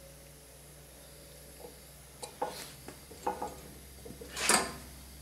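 A wooden workpiece knocking and scraping on the metal table and fence of a hollow chisel mortiser as it is handled into place, with the machine switched off. A handful of short knocks start about a second and a half in, and the loudest, a longer scrape, comes near the end.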